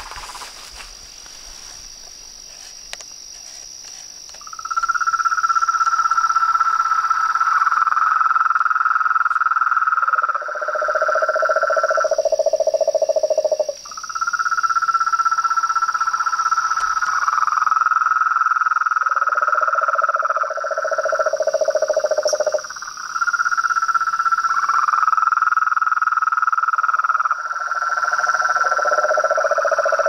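A close chorus of frogs and toads calling, starting about four seconds in. Long, even trills of several seconds each come again and again at a higher pitch, and a lower-pitched trill joins near the end of each one. Behind them runs a steady high-pitched insect drone.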